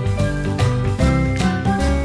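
Background music with a steady beat and a melody of short, bright notes stepping up and down.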